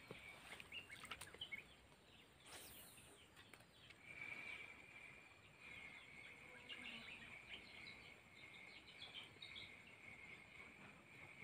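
Near silence with faint wetland wildlife: a steady high insect-like buzz sets in about four seconds in, with scattered bird chirps over it.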